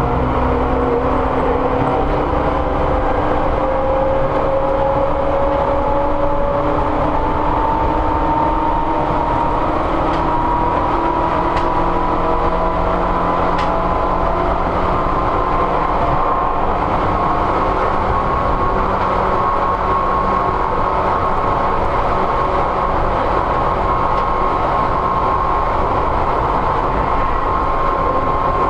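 Seibu 101 series resistance-controlled electric train heard from inside its motor car. The traction-motor whine climbs slowly in pitch for the first two-thirds as the train gathers speed, then holds steady. A constant rumble of wheels on rail runs underneath.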